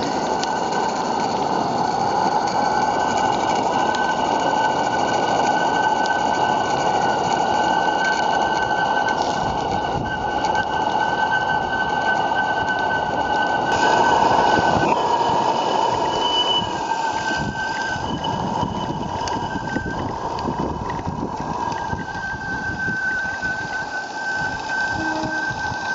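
A 3/4-inch scale gas-fired live-steam Allchin traction engine running under steam and hauling a loaded ride-on trolley. It makes a steady, dense rattling hiss with a few steady high tones over it, a little louder about halfway through.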